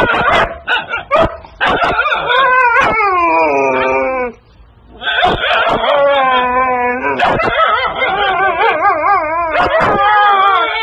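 A husky puppy and an adult husky trading drawn-out howling yowls back and forth, like husky 'talking'. It starts with a few sharp yips, then a long call that slides down in pitch, a short pause, and long wobbling calls that rise and fall.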